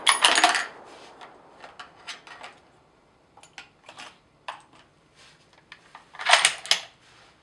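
Short metallic clicks and clatters of a bolt-action rifle being handled after a shot, typical of an Accuracy International AX338's bolt being worked, with a louder cluster of clicks about six seconds in.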